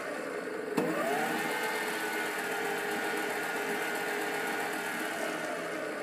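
MicroLux 7x16 mini lathe running with its chuck spinning: the whine of its brushless DC motor and belt and gear drivetrain. There is a click about a second in, after which the pitch dips, climbs and then sinks slowly, falling again near the end. The machine is well worn in, and its metal chip guard and chip pan have been replaced with laminated shelving panels, which the owner credits for its lower noise.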